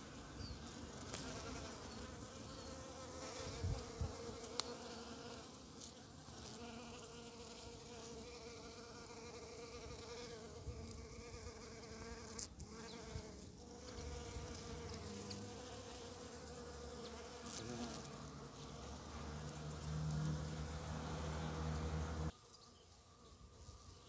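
A bee buzzing in flight: a steady hum, with a low rumble beneath it at times, that drops away abruptly near the end.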